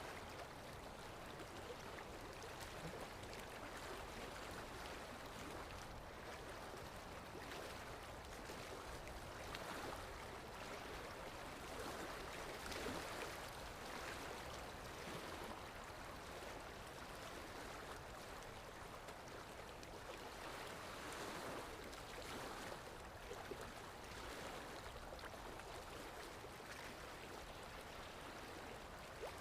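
Water lapping in small, irregular laps and splashes that swell and ease, over a low rumble of wind.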